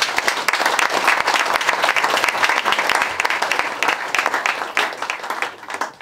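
Audience applauding: many hands clapping, dying away near the end.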